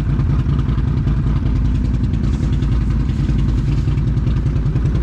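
ATV engine idling steadily with a low, even running sound.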